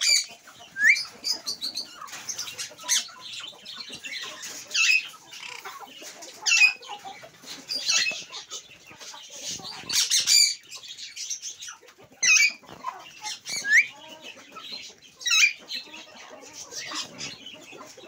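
Alexandrine parakeet calling: a series of short, sharp, high chirps and squawks every second or two, several of them sweeping quickly in pitch.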